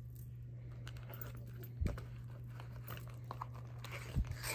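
Handling of the crochet work and leather bag piece: faint rustling and small clicks, with two soft low thumps about two and four seconds in, over a steady low hum.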